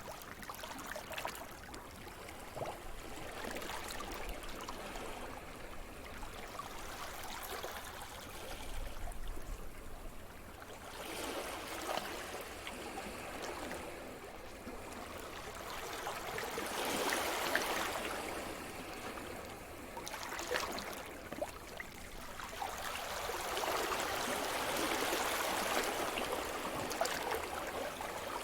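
Sea surf: waves breaking and washing up and back on the shore, the wash swelling about a third of the way in, again just past halfway, and longest near the end.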